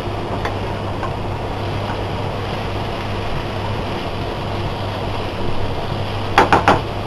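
Tindora (ivy gourd) strips sizzling steadily in oil in a frying pan as a spatula stirs them, over a low steady hum. Near the end, a quick run of three or four sharp knocks.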